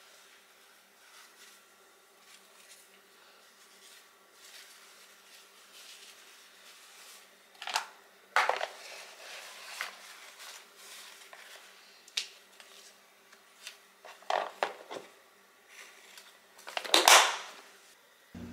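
Paper towel rustling and crinkling as it is wrapped around a flatbread and pressed into a plastic food container, with a few louder crinkles in the second half.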